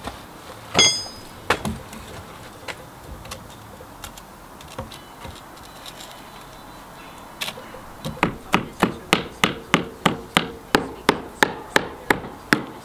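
Hammer blows at the brick window sill. A single ringing metallic clang comes near the start, then a few scattered knocks, and over the last five seconds a steady run of strikes at about two or three a second.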